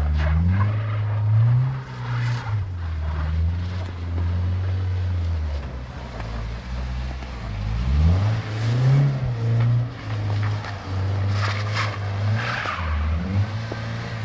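BMW coupe's engine revving up and down, with the rear wheels spinning and sliding through snow. The revs rise and fall several times, climbing sharply about eight seconds in.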